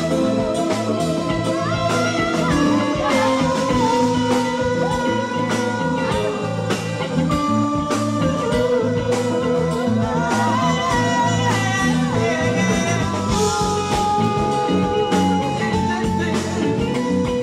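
Live R&B/soul band playing with singers, the voices sliding and wavering over bass guitar, guitar and a steady drum beat.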